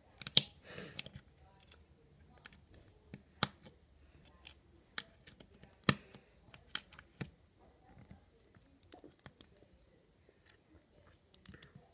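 Plastic LEGO bricks clicking as they are pressed together and handled: a series of sharp, irregular clicks, the loudest about half a second in and near six seconds in, with a brief scraping rustle just before the one-second mark.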